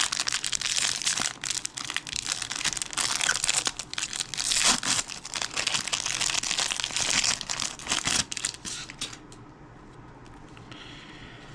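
Trading card pack wrapper being torn open and crinkled by hand: a dense run of crackling and rustling that stops about nine seconds in.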